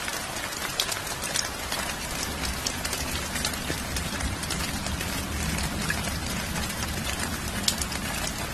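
Steady rain, with individual drops ticking sharply over an even patter and a low rumble underneath.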